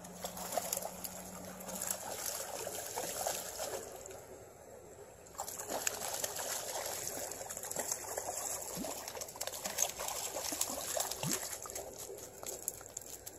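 Hooked trout splashing and thrashing at the surface of the water as it is reeled in: a continuous crackle of small splashes, with a brief lull about four to five seconds in before it picks up again suddenly.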